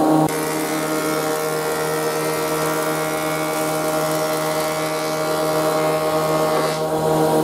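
Woodworking thickness planer running with its steady motor whine. A board feeds through it from about a third of a second in until near the end, adding the dense hiss of the cutter block shaving the wood. The cutting stops shortly before the end, leaving the machine running.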